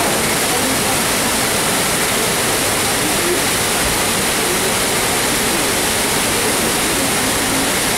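Water from a staged flash-flood effect pouring down an artificial rock canyon: a loud, steady rush.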